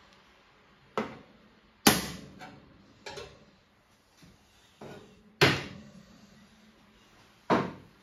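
Ceramic coffee cups set down and knocked against the metal drip tray of an espresso machine: several separate sharp clunks with a short ring, the two loudest about two and five and a half seconds in.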